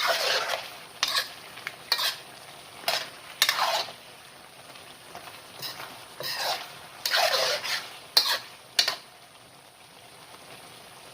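Chicken wings in sauce being stir-fried in a pan: a utensil scrapes and stirs in irregular strokes over a low sizzle. The strokes stop about nine seconds in, leaving the sizzle.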